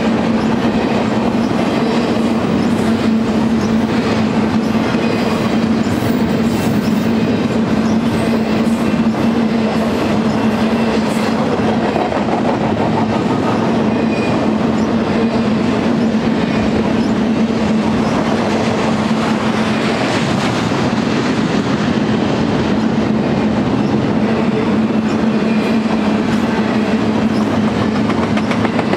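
Double-stack intermodal freight train's loaded well cars rolling past: steady rumble and clatter of steel wheels on rail, with a steady hum under it.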